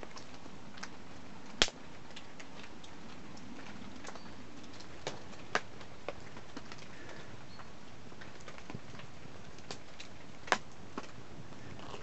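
Small wood fire in a stone fire pit crackling, with a few sharp pops, the loudest about a second and a half in, over a steady hiss of heavy rain on the tipi.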